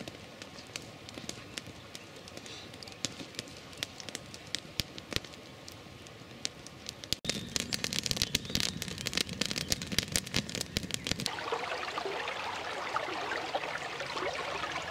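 Wood campfire crackling with sharp pops and snaps, louder and closer about halfway through. Near the end it gives way to the steady rush of a small forest stream running over logs and debris.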